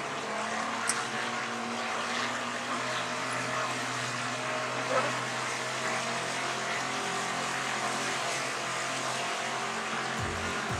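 Evinrude outboard motor running at a steady speed, driving the boat along, with water rushing in the wake.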